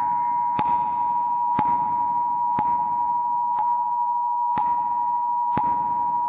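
Siren Head sound effect: a steady electronic tone of two close pitches held without change, with a short click about once a second.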